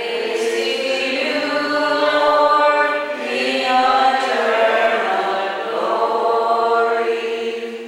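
Liturgical chant sung during Mass: a line of long held notes that move slowly in pitch.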